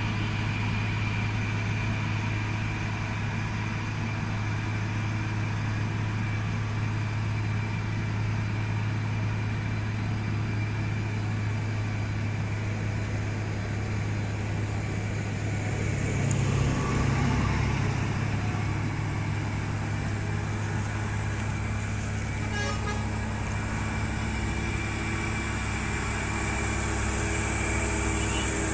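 Vehicle engine running steadily with a low hum, briefly louder a little past halfway through.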